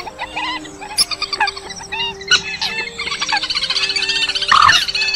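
Edited bird-call lure track of Eurasian coot calls mixed with other rail calls: many short overlapping calls, with a fast run of rapidly repeated high notes from about three seconds in.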